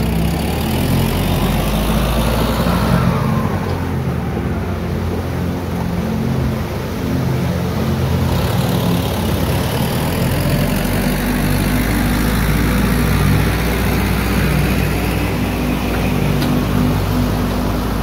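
Boat engine running steadily under way, its drone wavering a little, with a continuous rushing noise over it.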